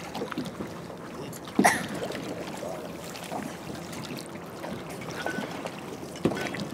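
Sea water sloshing and splashing around divers floating at the surface, with scattered small splashes and one sharper splash or knock about one and a half seconds in.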